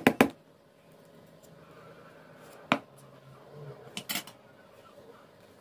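A few sharp clinks of metal hand-mixer beaters against a metal mixing bowl: one about halfway through, then a quick pair a second and a half later, with little else heard in between.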